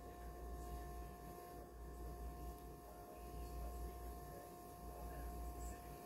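Faint steady room hum: a low drone with a thin, even whine above it, unchanging throughout.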